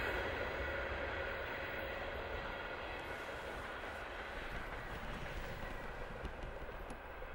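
A freight train's wheels on the rails dying away into the distance as the container train recedes: a low rumble with faint ringing tones, steadily fading.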